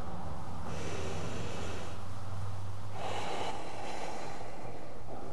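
A woman's slow, deliberate breaths, two of them, about a second in and about three seconds in, over a steady low hum.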